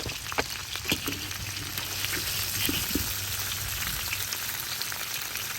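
Chicken pieces frying in hot oil, done and ready to come out: a steady sizzle with scattered short pops and crackles.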